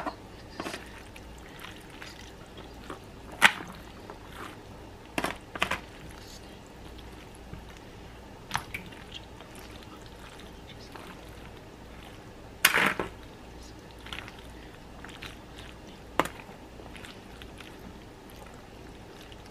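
Plastic spoon stirring buttered elbow macaroni in a disposable aluminium foil pan: scattered sharp knocks and scrapes of the spoon against the foil among the wet pasta. The longest scrape comes about two-thirds of the way through.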